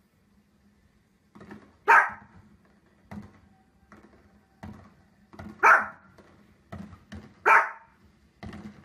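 Small fluffy dog barking: three loud, sharp barks spread over several seconds, with quieter short barks between them.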